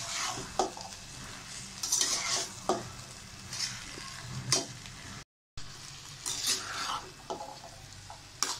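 A steel spatula stirring and scraping boiled potatoes, peas and tomato masala in a nonstick kadhai, in repeated strokes, while the masala sizzles as it fries. The sound cuts out briefly about halfway.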